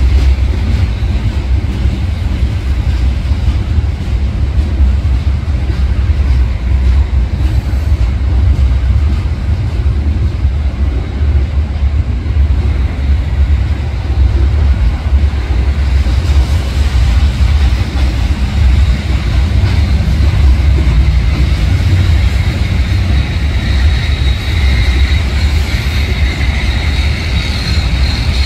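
Freight train's hopper cars rolling past: a steady low rumble of wheels on rail. A high squeal comes in about halfway and grows louder near the end.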